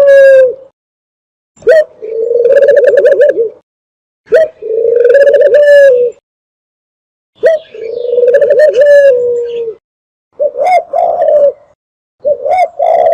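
Dove call recording used as a hunting lure: a series of loud, drawn-out purring coos, each about two seconds long, repeated every few seconds. Near the end come two shorter, broken coos.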